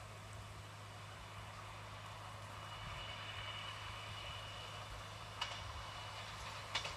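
Faint, steady rumble of a distant train approaching along the line, with a thin high whine in the middle and a couple of short clicks near the end.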